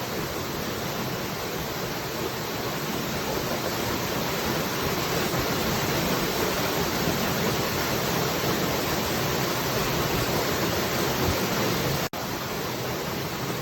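Falling water rushing steadily, an even noise with no separate drops or splashes standing out. It cuts out for an instant about twelve seconds in, then carries on as before.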